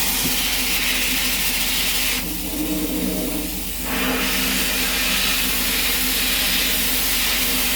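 Sandblaster nozzle blasting abrasive onto glass with a steady loud hiss over a low hum. About two seconds in it eases off for a second and a half, then runs full again.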